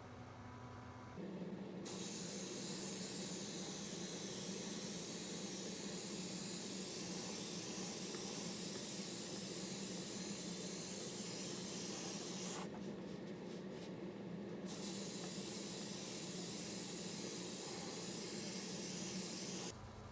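Paint sprayer hissing steadily over a low motor hum. The hiss stops for about two seconds partway through while the hum carries on, then starts again.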